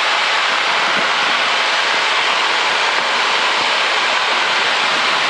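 Steady cabin noise of a single-engine Grumman light airplane in flight: the piston engine, propeller and rushing air blend into one even, unchanging roar, heard from inside the cockpit.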